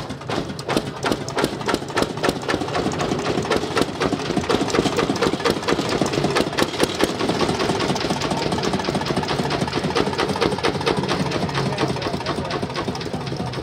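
1940 Ruston & Hornsby narrow gauge diesel locomotive's engine running as the loco moves along the track, with a rapid, even beat. It grows a little louder about a second in.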